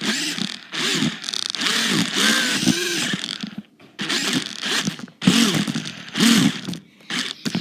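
Toy RC car's electric motor whirring in repeated short bursts, its pitch rising and falling with each squeeze of the throttle, with brief pauses between bursts.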